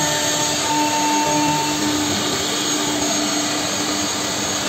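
Machinery of a single-head CNC router running steadily: a continuous whirring hiss with a steady hum underneath.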